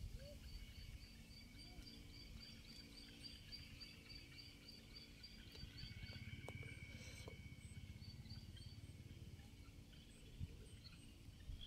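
Quiet outdoor ambience with a faint high chirp repeated evenly about four times a second for the first five seconds or so, and a few more chirps later on.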